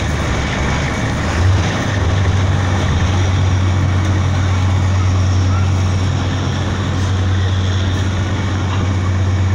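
Heavy truck diesel engine running at a steady idle, a low even drone that grows stronger about a second and a half in, with voices in the background.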